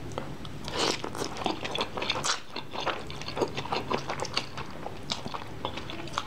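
Close-up eating sounds of a mouthful of Samyang Buldak Jjajang instant noodles being drawn in and chewed: a run of quick, wet, clicking mouth noises.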